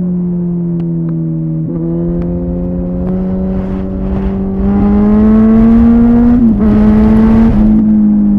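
Kawasaki ZZR 1400 inline-four engine through a Delkevic exhaust, running at fairly high, steady revs. The pitch dips briefly a couple of seconds in. About halfway through it gets louder and climbs, with two short dips in pitch, then eases off slowly near the end.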